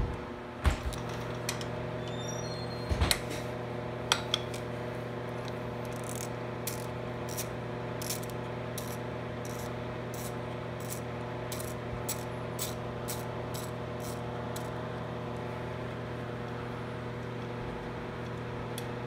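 A hand ratchet driver loosening the ignition coil mounting bolts on a small engine: a few sharp knocks of metal in the first few seconds, then a run of light, even ratchet clicks, about two or three a second, that stops about two-thirds of the way through. A steady hum runs underneath.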